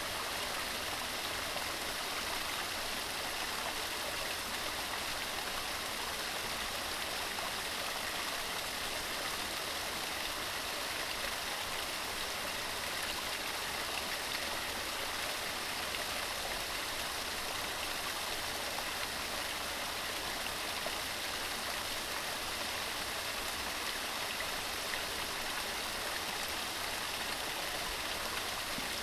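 Fast mountain stream running over rocks: a steady, even rush of water.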